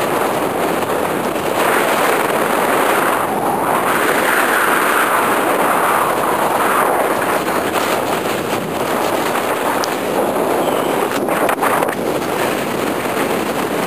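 Wind rushing over a handheld camera's microphone high in the air under a parasail: a loud, rough rush that swells and eases, with a few knocks near the end.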